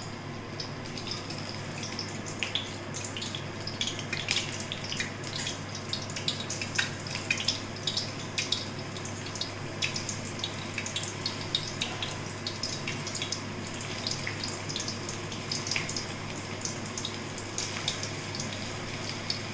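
Sweet tamarind and jaggery chutney boiling on high flame on the stove: a steady hiss with irregular bubbling pops and crackles.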